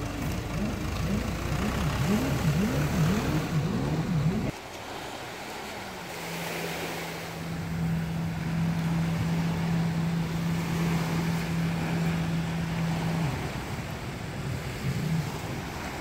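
A farm tractor's engine runs loudly, hauling a speedboat on its trailer up the ramp, and cuts off abruptly about four seconds in. Then comes the steady drone of a jet ski's engine out on the water, over wind on the microphone and small waves breaking. The drone stops a few seconds before the end.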